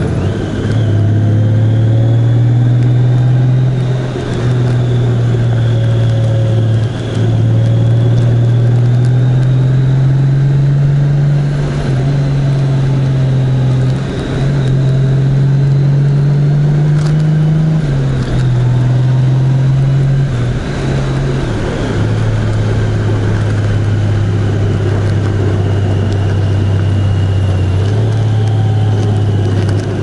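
Vehicle engine running steadily while under way. Its pitch holds and then steps up or down several times, with a few brief dips in loudness.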